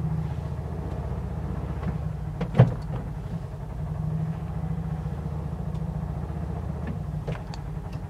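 Polaris Ranger UTV engine idling with a steady low hum, with one short knock about two and a half seconds in.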